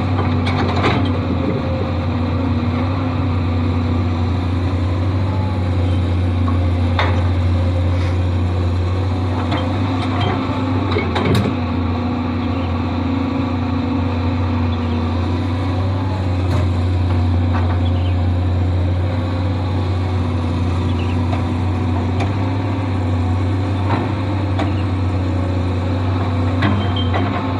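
Excavator's diesel engine running steadily with a constant low hum, with a few light knocks now and then.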